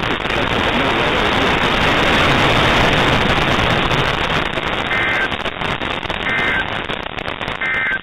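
NOAA Weather Radio receiver static hiss, with three short bursts of two-tone SAME digital data warbles about a second and a half apart near the end: the end-of-message codes that close the required weekly test broadcast.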